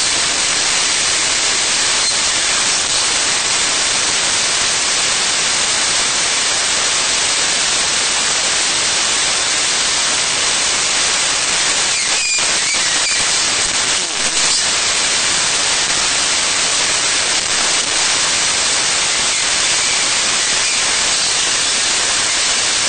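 Loud, steady static-like hiss with no change in level, with a few faint short high whistles about halfway through.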